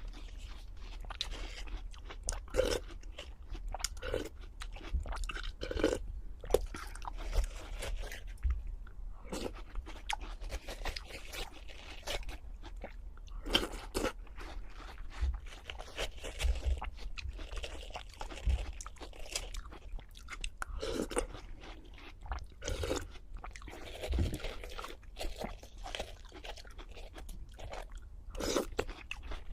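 Close-miked crunching and chewing: a person biting into and chewing crisp food, with irregular sharp crunches throughout.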